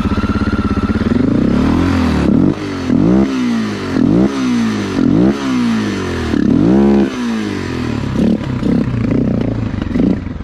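Honda XR650L single-cylinder four-stroke engine idling, then revved up and dropped back in quick blips about once a second while the air intake is capped by hand to try to clear a dirty carburetor. After the revs it runs lower and unevenly; the carburetor's slide is sticking halfway and needs cleaning.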